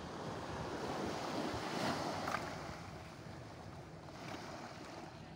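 Wind and surf noise, swelling to a peak about two seconds in and then easing.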